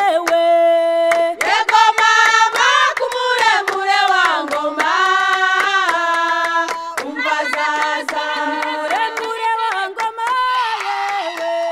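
Song sung in Kinyarwanda, the melody gliding between held notes, with hand claps keeping a steady beat throughout.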